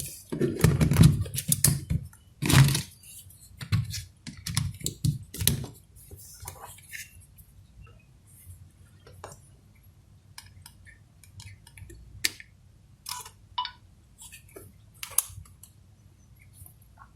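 Small plastic clicks and handling knocks from a Samsung NX1000 camera body as a battery is fitted and its program selector dial is turned to test it after its contacts were cleaned. The clicks are dense and louder for the first six seconds, then come sparser and single.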